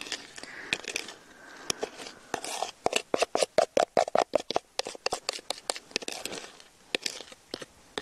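Metal spoon scraping and knocking inside a plastic mixing bowl as the last of a cake batter is scraped out into a pan: a run of short clicks and taps, fastest and loudest in the middle seconds.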